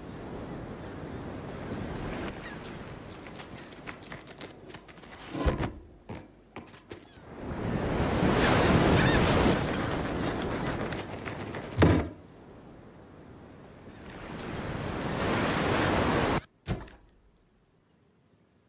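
Cartoon sound effects: rushing noise that swells and fades twice, with sharp thuds at about five and twelve seconds in. The second swell cuts off suddenly near the end.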